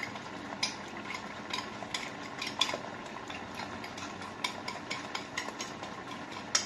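A metal utensil clicking and scraping against a ceramic plate in quick, irregular strokes as food is worked in the plate, over a faint steady hum.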